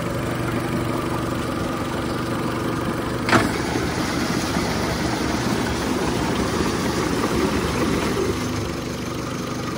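2008 Mercury 90 hp four-stroke outboard, cowling off, idling steadily with its lower unit in a test barrel of water. A single sharp knock comes about three and a half seconds in.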